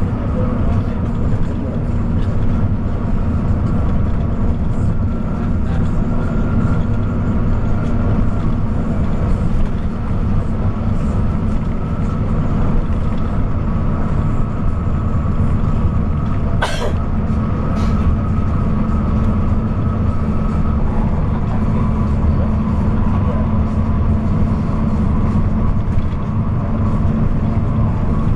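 Bus running at highway speed: a steady engine drone with road and wind noise. A brief sharp sound comes about seventeen seconds in, and a fainter one a second later.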